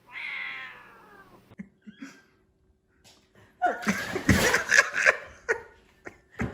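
A cat gives one drawn-out meow that falls in pitch, in answer to being asked to roar. About three and a half seconds in comes a louder, rougher outburst lasting about two seconds.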